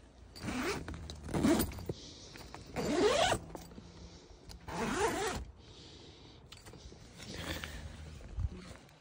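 Tent door zipper being pulled open in about five short rasping strokes, with pauses between them.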